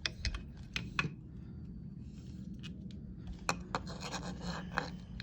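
Light clicks and rubbing from a replacement motorcycle stator being handled and seated in the engine's side cover by hand, with scattered sharp metal clicks through a few seconds of scraping.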